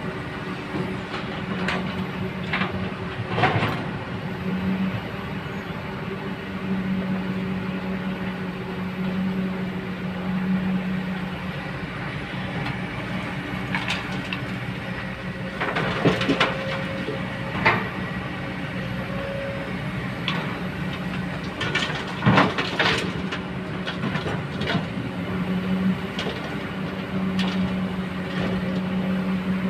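Hydraulic excavator's diesel engine running steadily, its pitch swelling now and then as it works under load. Several sharp metallic clanks and knocks come through, the loudest about two-thirds of the way in.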